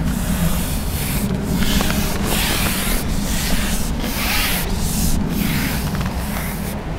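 Gusty wind blowing across the microphone: a loud rushing noise with a low rumble that swells and drops every second or so.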